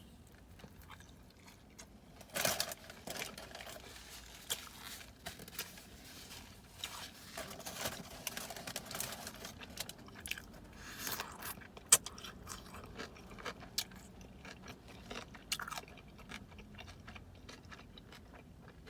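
A person chewing and biting food close to the microphone, with irregular crunches and clicks; one sharp click about twelve seconds in.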